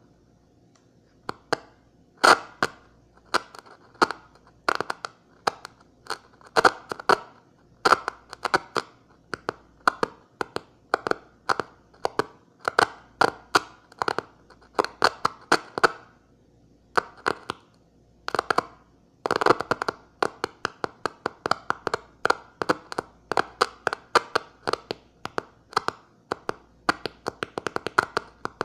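Morse code keyed by hand on a makeshift key: a sharp click each time contact is made and broken, with short buzzes between, in irregular groups of short and longer marks with brief pauses.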